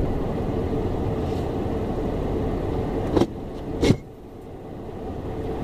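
Steady car cabin noise from the engine and tyres while driving. A little after three seconds two sharp clicks come less than a second apart, after which the noise drops much lower and slowly builds again.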